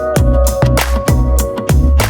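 Background music: an electronic track with a steady drum beat and sustained synth or string notes.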